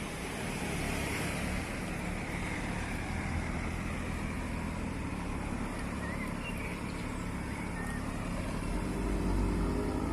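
Modified cars' engines running: one passes by with falling pitch in the first couple of seconds, then a steady low engine rumble, and an engine begins to rev up near the end.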